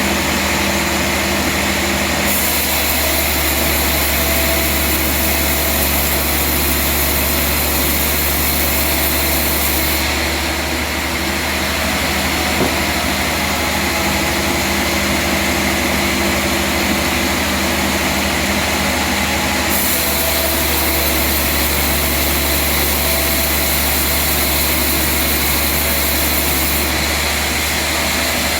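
Sawmill machinery running steadily. Its sound shifts in stretches of several seconds, changing about two seconds in, at ten seconds, at twenty seconds and near the end.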